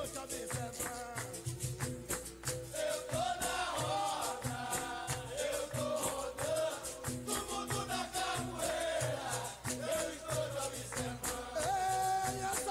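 Capoeira music: a voice singing over berimbau and percussion, with a shaker rattling in the rhythm.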